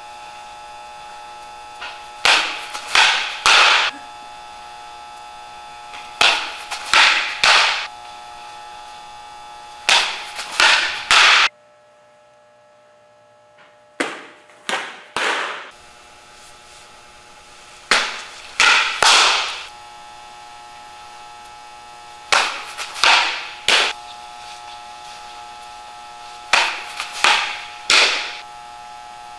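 Fastpitch softball pitching: sharp slaps and pops come in clusters of about three every four seconds, each ringing briefly in a large hall, as fastballs are thrown into a catcher's mitt. A steady hum runs underneath.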